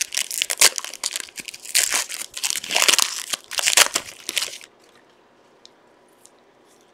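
Plastic wrapper of a trading-card pack crinkling as it is torn open and handled, for about four and a half seconds, then it stops.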